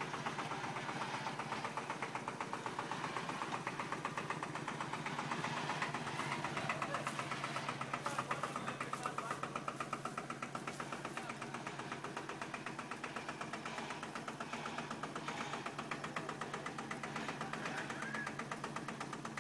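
Small farm tractor's engine running steadily with a fast, even clatter as it tows a loaded trailer slowly across gravel.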